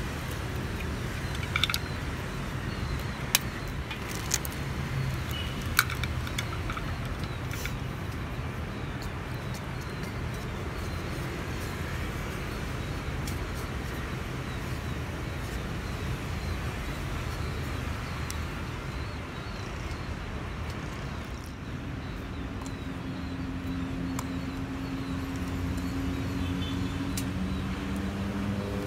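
Chopsticks working an egg and flour batter in a ceramic bowl, with a few sharp clicks in the first six seconds of shell and chopsticks knocking on ceramic, over a steady low background rumble. A low steady hum joins about two-thirds of the way in.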